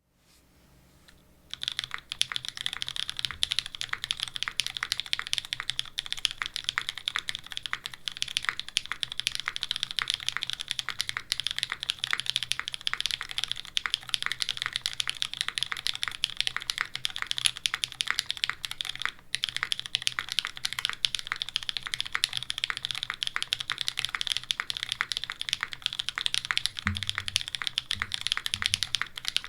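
Fast continuous typing on a custom mechanical keyboard with lubed, filmed linear switches (Cherry MX Black housings with Kailh black stems) in an undampened aluminium plate, with GMK keycaps. A dense run of key clacks starts about a second and a half in, with a brief pause in the middle and a few deeper thumps near the end.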